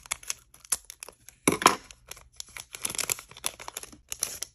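Scissors snipping open a foil trading-card pack, then the crinkly foil wrapper crackling and rustling as the cards are pulled out, in a run of sharp crackles with two denser bursts.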